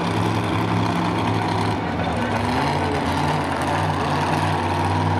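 Monster truck engine idling steadily, dropping slightly in pitch about two seconds in.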